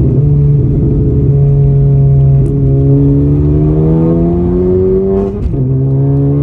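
Honda Civic Si's turbocharged 1.5-litre four-cylinder running through an aftermarket downpipe, front pipe and catback with race muffler, accelerating with the engine note climbing slowly in pitch. About five and a half seconds in the pitch drops sharply at a gear change and the note settles lower.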